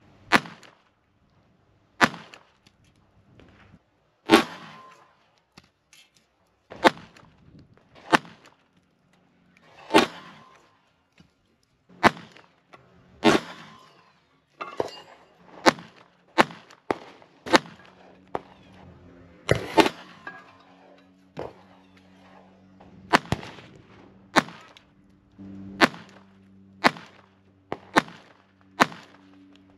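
Beretta 21A .22 LR pistol firing single shots, about two dozen sharp cracks. They come one to two seconds apart at first and faster, about a second apart or less, in the second half.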